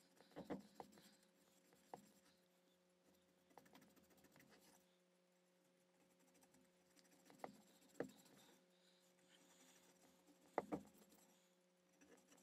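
Hand pick scraping and ticking in the grooves between the cooling fins of a Thomas 600-8 airbrush compressor's metal housing, cleaning out old paint and crust: faint scratching with several sharp clicks, over a faint steady hum.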